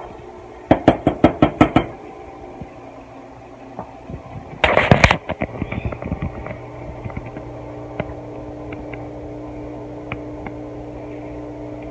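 A wooden spoon tapping quickly against the rim of a stainless steel saucepan, about eight sharp knocks about a second in. A short, loud clatter follows about five seconds in, over a low steady hum.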